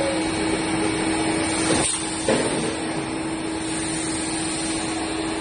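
Steady machinery noise of a running PVC pipe extrusion line, with a steady hum that cuts off abruptly about two seconds in.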